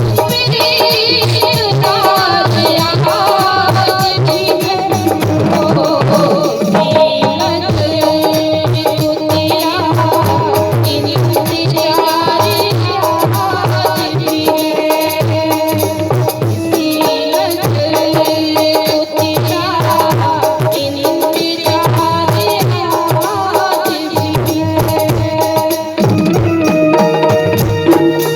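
Hindi ghazal music: tabla keeping a steady beat under a sustained melodic line.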